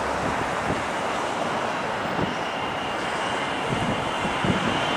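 Boeing 777-200ER airliner on final approach, its jet engines a steady rushing noise that grows slightly louder, with a thin high engine whine coming in near the end as the plane comes close.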